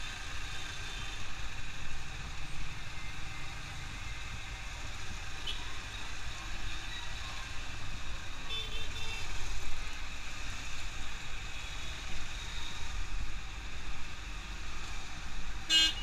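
Road traffic and engine noise with a low wind rumble, picked up by a motorcycle rider's helmet-mounted microphone. A short horn toot comes near the end.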